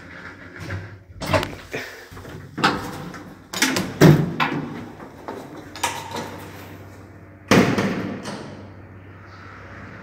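Passenger lift doors being worked: a series of metal clanks and bangs, the loudest about four seconds in, then another bang with a ringing tail about seven and a half seconds in. A faint steady low hum runs underneath.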